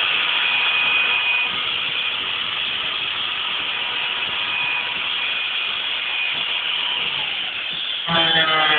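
Angle grinder running steadily with a hissing whine. About eight seconds in it bites into the BMW's sheet-metal rear panel, throwing sparks, and the sound turns suddenly louder with a ringing, pitched tone as the disc cuts the metal.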